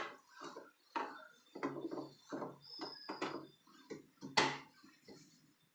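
A string of irregular knocks and clatter from hands working on a front-load washing machine's door, with one louder, sharper knock about four and a half seconds in.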